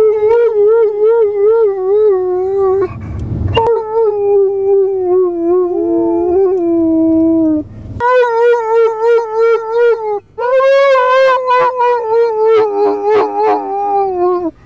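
Irish Wolfhound howling, its "singing": long, loud howls with a wavering pitch, broken by short pauses about three, eight and ten seconds in.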